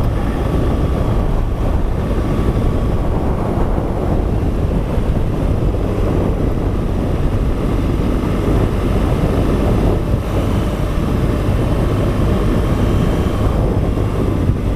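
Motorcycle engine running steadily while riding along a dirt trail, with wind rushing over the microphone.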